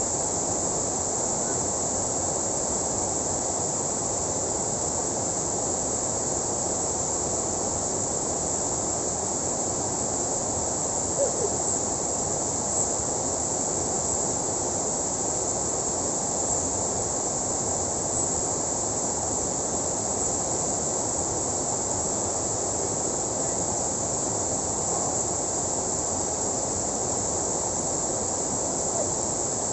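Water pouring over a small concrete weir into a river pool: a steady rushing, with a steady high-pitched insect drone over it.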